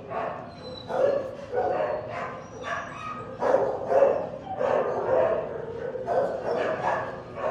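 Shelter dogs barking repeatedly, about one to two barks a second.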